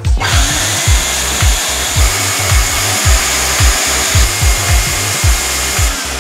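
Wet-and-dry vacuum running, a steady rushing motor noise with a high whine, as it sucks up spilled water from under the floorboards; it cuts off near the end. Background music with a steady beat plays underneath.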